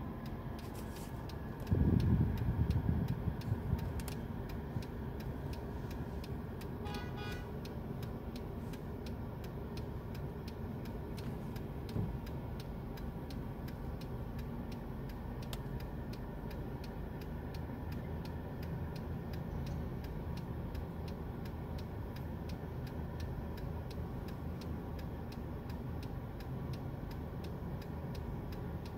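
A car running, heard from inside the cabin as a steady low rumble, with a loud bump about two seconds in and a brief chime about seven seconds in. Faint regular ticking runs under it.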